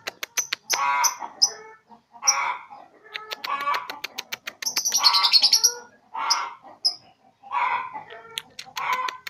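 Three-month-old lovebird practising its ngekek chatter: rapid runs of clicks broken by about eight harsh chattering bursts and short, high chirps. These are the attempts of a young bird still learning the song.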